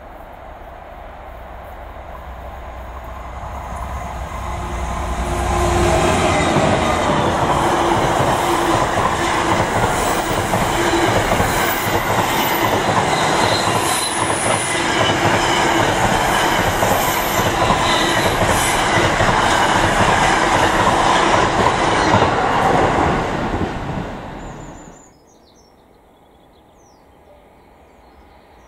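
Class 66 diesel locomotive with its EMD two-stroke V12 rumbling low as it approaches. It grows louder over about six seconds, then the loco and a long train of intermodal container wagons pass close by, wheels rumbling and clattering on the rails. The sound cuts off suddenly about 25 seconds in, leaving only faint outdoor background.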